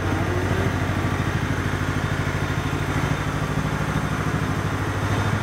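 Husqvarna riding lawn mower engine running steadily at idle with an even, rapid pulse.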